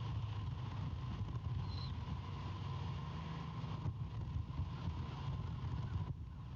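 Wind buffeting an outdoor nest camera's microphone, a steady low rumble with a faint constant high tone above it.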